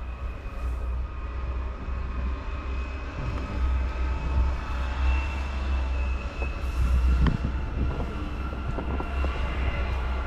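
Steady low rumble of a heavy vehicle running, with a faint steady high whine over it and a few short knocks about seven seconds in.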